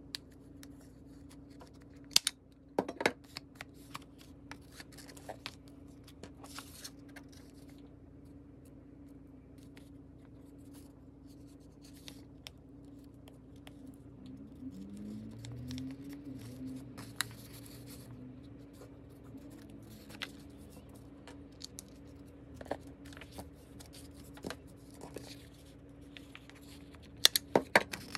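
Paper being handled on a cutting mat: soft rustling as a paper napkin layer is peeled and decorated paper is pressed flat, with a few sharp clicks about two to three seconds in and a quick cluster near the end, over a faint steady low hum.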